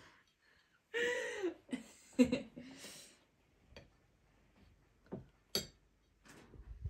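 A table knife clicking and tapping against a ceramic plate as a chocolate-glazed pastry is cut, a few sharp clinks, the loudest a couple of seconds in. A brief voice sound, like a short hum or chuckle, comes about a second in.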